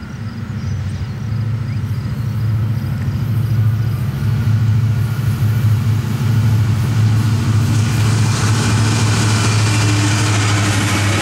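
Union Pacific diesel locomotives at the head of a double-stack container train approaching and passing: a low, steady engine drone that grows louder over the first few seconds, joined from about eight seconds in by the rushing noise of wheels on rail as the locomotives go by.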